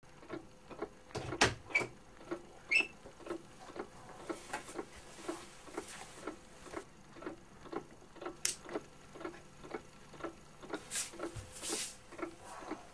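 Regular ticking, about three ticks a second, with a few louder, sharper clicks about one and a half and three seconds in.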